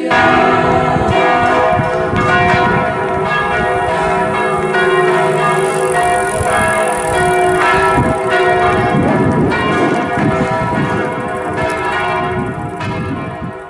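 Church bells of the Basilica of St Francis in Assisi pealing, several bells ringing together in a dense, overlapping clangour that dies away near the end.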